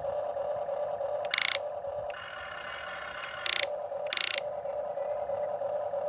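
Huina remote-control toy excavator's electric motors and plastic gearing: a steady hum, broken by three short, loud bursts of gear whirring as the bucket moves, the first about a second in and two more close together around three and a half to four seconds in.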